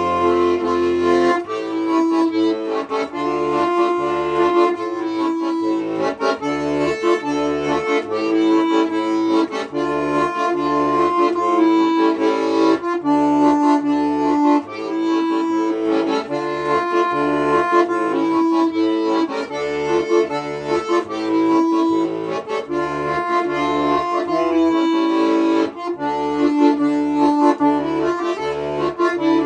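Accordion music: a melody of held notes over an even, pulsing bass accompaniment.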